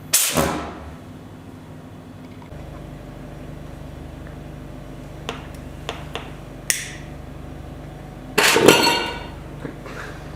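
Alcohol vapour igniting inside a glass jar: a sudden whoosh at the start, a few sharp clicks, then a second, longer burst of flame with rapid fluttering pulses about eight seconds in.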